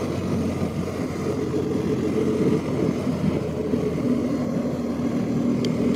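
BMW R-series GS motorcycle's boxer-twin engine running steadily while riding.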